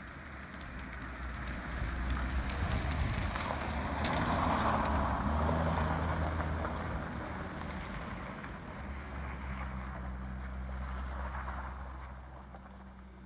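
A Triumph Dolomite 1300's four-cylinder engine as the car drives past. It grows louder as the car approaches and peaks about four to six seconds in, with a rush of tyres on the wet track, then fades with a steady engine note as the car pulls away.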